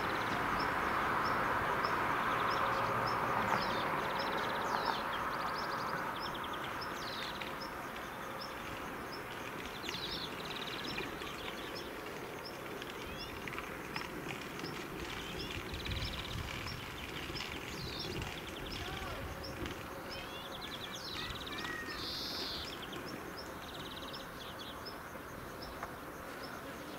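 Outdoor ambience: insects chirping with a steady, regular high tick, and scattered bird calls, over a broad noise that fades over the first few seconds.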